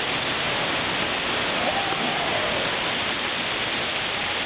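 Steady rushing of falling water, an indoor waterfall running down a rock wall, with a faint voice in the background a little before the middle.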